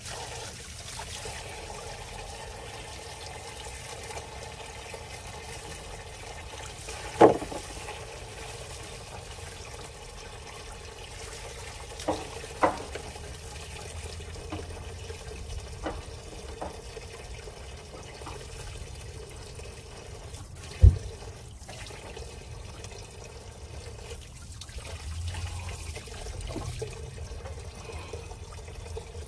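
Diesel fuel pouring in a steady stream from a truck fuel tank's open drain and splashing into a tub below. A few sharp knocks sound over it, the loudest about seven seconds in and again about twenty-one seconds in.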